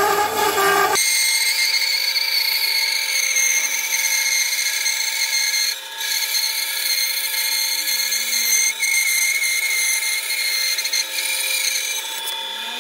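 Bandsaw with a wide, nearly new blade cutting a glued-up wooden guitar body blank along straight lines: a steady, loud whine made of several high tones, dipping briefly a couple of times.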